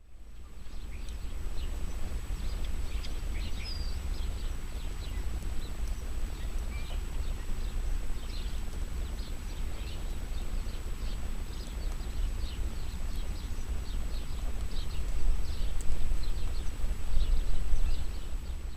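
Birds chirping, many short calls, over a steady low rumble.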